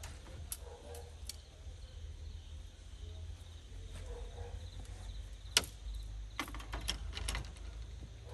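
A few sharp clicks and knocks over a low steady rumble: three light ones in the first second and a half, the loudest about five and a half seconds in, then a quick cluster of knocks soon after.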